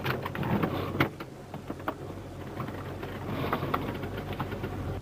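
Vehicle doors and latches being worked as people climb out in a hurry: a string of sharp clicks and knocks, the loudest about a second in, over the vehicle's steady low hum.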